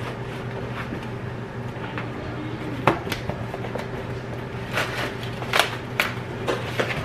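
Unpacking a package by hand: scattered rustles and light clicks, busier about five to six seconds in, over a steady low hum.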